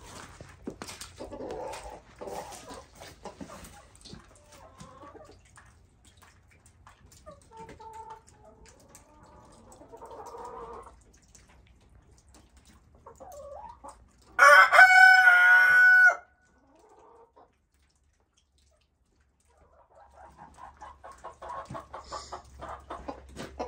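Chickens clucking, with a rooster crowing loudly once, for just under two seconds, about halfway through.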